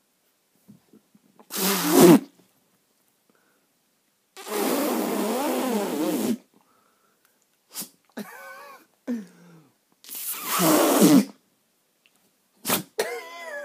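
Two loud sneezes, the first about a second and a half in and the second about eight and a half seconds later. Between them comes a longer rasping sound of about two seconds with a wavering pitch, followed by quieter short sounds whose pitch also wavers.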